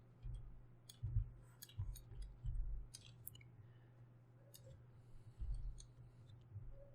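Scattered clicks and soft low thuds of someone working a computer at a desk, over a steady low electrical hum.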